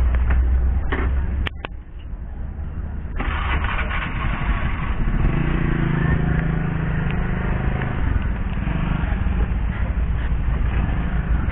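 A motor vehicle engine running with a steady hum that comes in about five seconds in, over continuous outdoor noise, with a couple of sharp knocks near the start.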